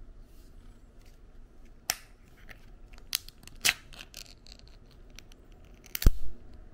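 Full-open ring-pull lid of a metal food can being levered up and peeled back: a few sharp metallic clicks and small ticks as it gives way, then a loudest snap with a short dull thump about six seconds in.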